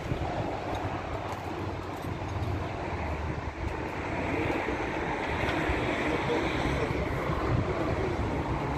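Steady low hum of an idling diesel truck engine, with a steady noisy hiss over it, getting a little louder about halfway through.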